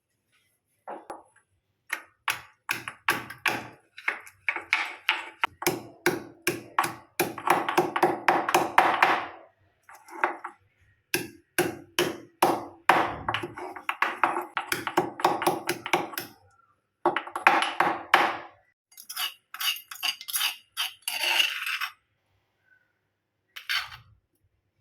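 A kitchen utensil striking repeatedly against a vessel that rings, about four knocks a second, in runs of a few seconds with short breaks between them.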